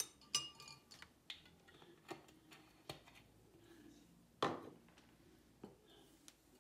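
A small spoon and glass oil bottles clinking and knocking against a ceramic bowl and the counter. It is a string of light clicks and clinks, some ringing briefly, with the loudest a short rattle about four and a half seconds in.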